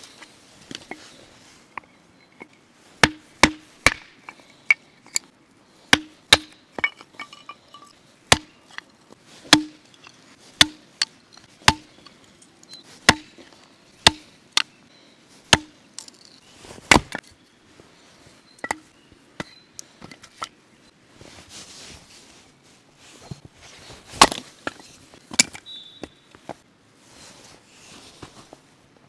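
Hatchet splitting firewood into kindling on a wooden chopping block: a quick run of sharp woody knocks, roughly three every two seconds, then a few single, more widely spaced strikes in the second half.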